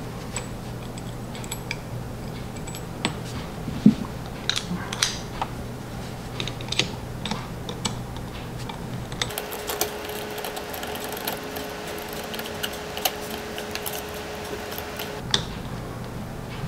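Light metallic clicks and handling sounds as a screwdriver turns the set screw in the handle hub of a cast-iron Charles Parker bench vise. The clicks are scattered at first; past the middle they come as a denser run of light ticks with a faint steady tone, which fades out a little before the end.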